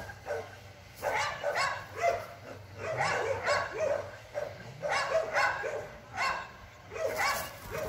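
Pit bull barking over and over, a short bark about every half-second to one second, excited while held back at the start of a wall climb.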